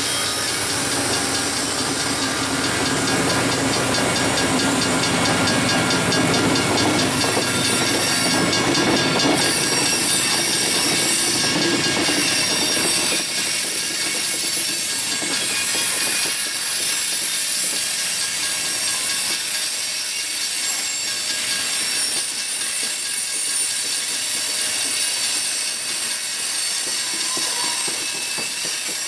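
Kansas City Southern freight train passing close by. For the first dozen or so seconds the trailing diesel locomotive, an EMD SD70ACe, rumbles past. After that the engine sound drops away and covered hopper cars keep rolling past on the rails.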